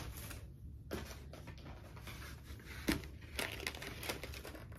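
Packaging being handled and opened: soft rustling and crinkling, with a few brief sharp ticks scattered through.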